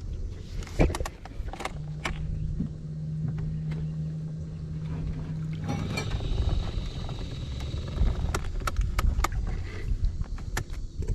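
Knocks and clicks of handling on a small fishing boat over a steady low rumble, with a low hum for about four seconds from about two seconds in.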